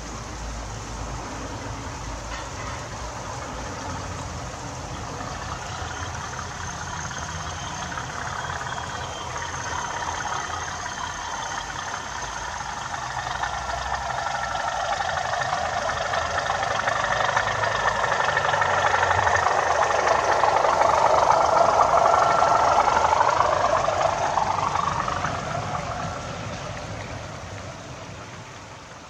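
OO gauge model train, a green Class 37 diesel locomotive hauling a rake of coaches, running along the track. Its running noise grows steadily louder as it approaches, is loudest about three-quarters of the way through, then fades as the coaches go past.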